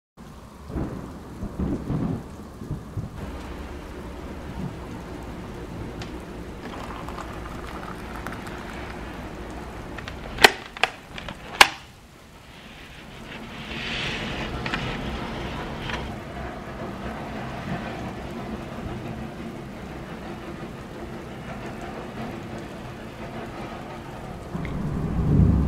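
Steady rain of a thunderstorm with low rumbles of thunder, one early on and a louder one building near the end. Two sharp clicks about a second apart, near the middle, stand out above the rain.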